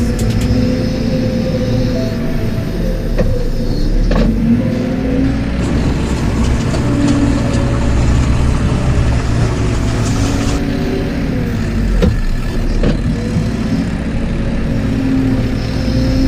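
Steady vehicle engine sound with background music.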